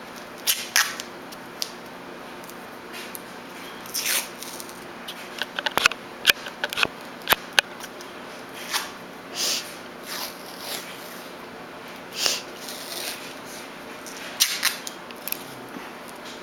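White athletic tape being pulled off the roll and wrapped around a wrist: irregular short rasps of tape peeling and rubbing, with a cluster of sharp clicks about six seconds in.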